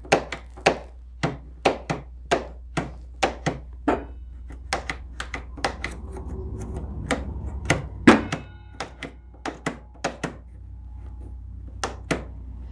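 A quick series of sharp knocks, about two a second, like blows from a hammer or mallet. From about halfway in, a low electric hum rises for a few seconds under the knocks, then fades: the old table saw's motor is humming without getting going, a sign that it is failing.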